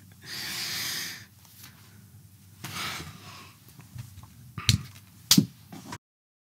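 A person breathing out twice in long, hissy exhales, then two short knocks about half a second apart; the sound cuts off abruptly near the end.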